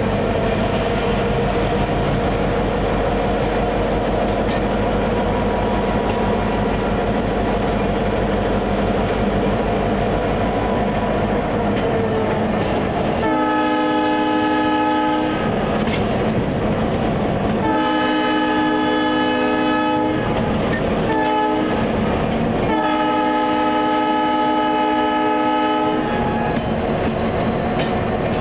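EMD SD50 diesel locomotive under way, its 16-cylinder two-stroke engine running steadily over rail clatter. About 13 seconds in, its multi-chime air horn sounds the grade-crossing signal: long, long, short, long.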